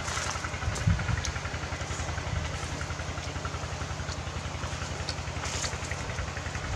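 An engine idling steadily, a low, evenly pulsing rumble, with a few light clicks of chopsticks against a metal tray.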